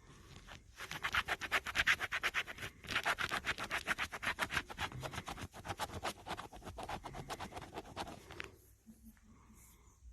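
Scratch-off lottery ticket being scratched: quick, even strokes rubbing off the coating, several a second, with a short pause near the third second, stopping about a second and a half before the end.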